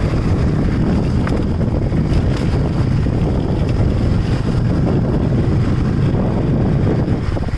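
Wind buffeting the microphone over a motorcycle engine running while riding: a steady rushing noise, strongest in the low end.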